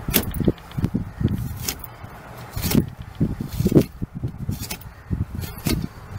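Seat belt webbing being tugged and sawed at with a small flashlight's built-in seat-belt cutter: irregular knocks, scrapes and sharp clicks as the cutter is worked back and forth, not cutting cleanly.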